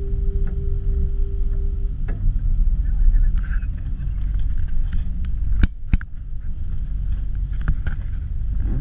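Tour boat under way: a steady low rumble from the motor, with wind buffeting the microphone. A held tone stops about two seconds in, and two sharp clicks come a little past halfway.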